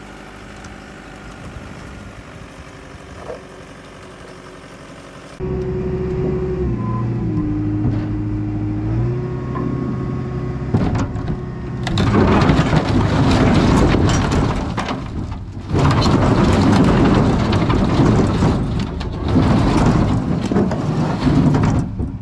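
Diesel engine of heavy machinery running, cutting in loudly about five seconds in, its pitch dropping and rising as it works. From about halfway on, loud continuous clattering and grinding of rocks being moved drowns it out.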